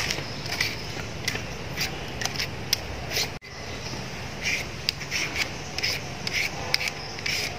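Hand-held vegetable peeler scraping the skin off a raw potato in short strokes, a couple of strokes a second.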